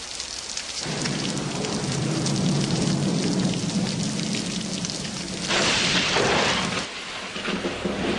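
Steady rain with thunder: a low rumble sets in about a second in, and a louder rush of thunder comes about five and a half seconds in.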